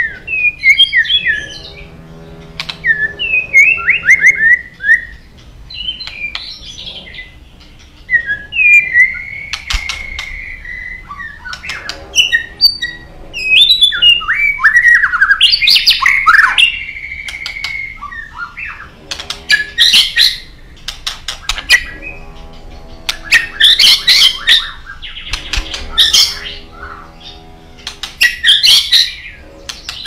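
White-rumped shama (murai batu) in full song: loud phrases of clear gliding whistles and fast tumbling notes, turning to harsher chattering bursts in the second half, each phrase a second or two long with short gaps between.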